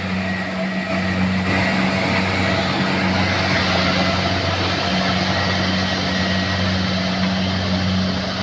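Combine harvester running steadily: a low engine drone under a wide hiss of machinery noise.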